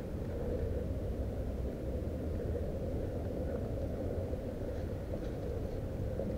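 Low, steady rumble of wind buffeting a body-worn camera's microphone.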